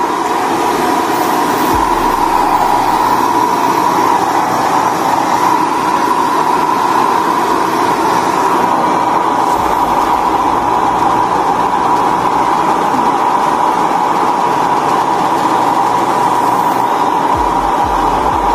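Handheld hair dryer running steadily while drying a freshly bathed cat's fur: a constant high whine over the rush of air.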